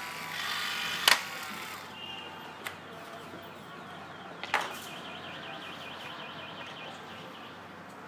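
Handling noise from a plastic skeleton mask and its cloth hood being picked up and moved. There is a sharp click about a second in, a lighter tick, and another knock about four and a half seconds in, over faint rustling.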